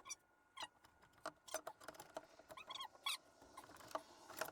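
Faint, irregular small clicks and light clinks of hand work on the compressor mounting, with a short squeak about two and a half to three seconds in.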